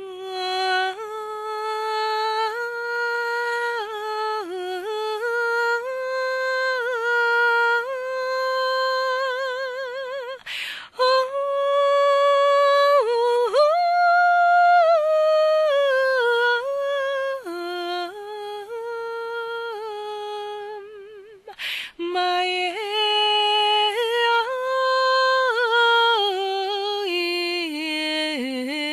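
A woman's unaccompanied voice singing a slow shamanic-style chant. It moves in long held notes with a wide, wavering vibrato, stepping up and down between pitches. It breaks off for a breath about ten seconds in and again about twenty-two seconds in.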